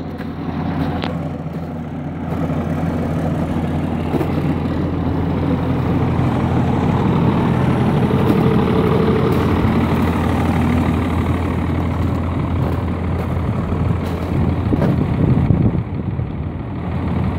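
Cummins diesel engine of a Timberjack 450 grapple skidder idling steadily, warming up after a cold start. It gets a little louder about two seconds in.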